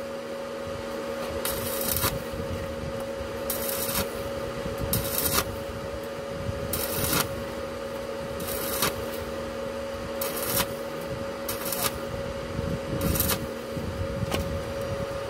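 Stick (arc) welding on a truck's exhaust pipe: the arc crackles and hisses in about nine short bursts, each under half a second, coming roughly every second or so, over a steady hum.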